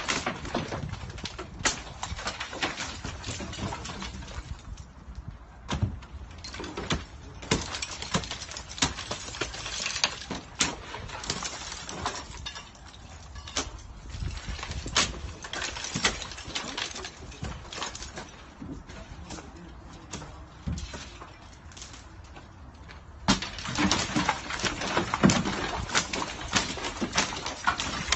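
Demolition work: irregular knocks, bangs and clatter of material being broken and falling, getting louder and busier near the end.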